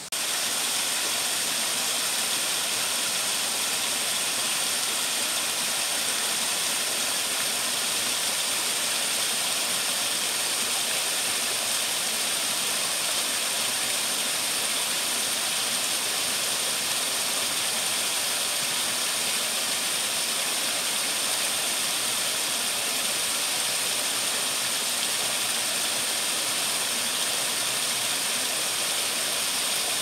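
Mountain stream tumbling over boulders in small cascades: a steady rushing of water, with a thin high-pitched band held above it.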